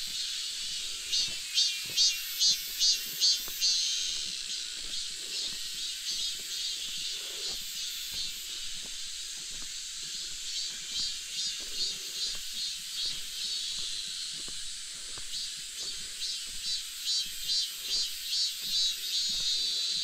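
Cicadas singing in the trees: a steady high buzz with a louder pulsed call, about two to three pulses a second, that comes in three spells.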